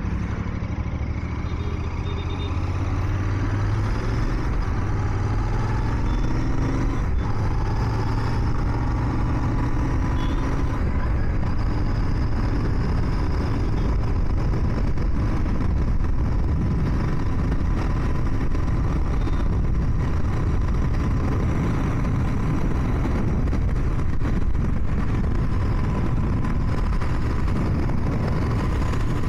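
Royal Enfield Continental GT 650's 648 cc parallel-twin engine running under way, its revs rising in the first few seconds as the bike speeds up, then holding steady at cruising speed. Steady road and wind noise runs under it.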